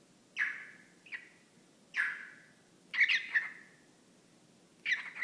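Cockatiel giving a series of short chirps, about one a second, some in quick doubles, between bouts of its mimicked talk.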